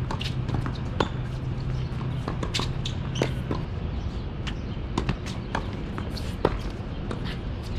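Tennis balls being struck by rackets and bouncing on a hard court: sharp pops every second or so, irregular, the loudest about a second in and at about six and a half seconds. A low steady hum underneath fades out about halfway through.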